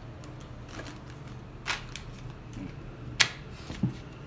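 A clear plastic blister pack holding a tattoo cartridge needle being picked up and handled, giving a few sharp plastic clicks, the loudest a little after three seconds in.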